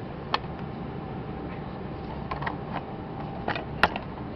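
Sharp plastic clicks and snaps as the quick-connect fitting of the coolant air bleed line is pushed over and the line is worked off its nipple; the loudest snap comes near the end. A steady low hum runs underneath.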